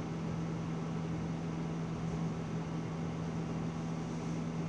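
Steady room background noise: a constant low hum with an even hiss, as from a room's air conditioning.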